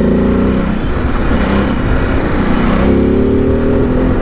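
Ducati DesertX Rally's 937 cc Testastretta V-twin engine and exhaust under way, with steady wind rush. The engine note falls back after the first half second, then comes in strongly again about three seconds in and climbs slightly in pitch as the bike accelerates.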